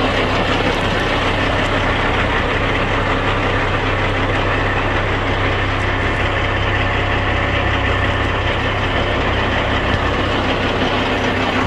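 A Kenworth dump truck's CAT twin-turbo diesel engine idling steadily.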